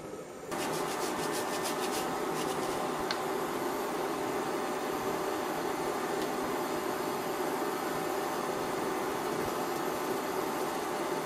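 Broth heating in an electric wok: a steady rushing hiss from the hot liquid, starting about half a second in.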